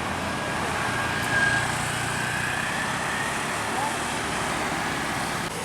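Road traffic: a heavy vehicle's engine drones steadily as it passes, with a faint whine that rises slightly in pitch about a second in.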